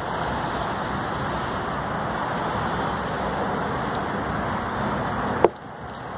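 Dog digging in loose earth, its paws scratching the soil in a steady rush of noise that stops suddenly about five and a half seconds in with one sharp knock.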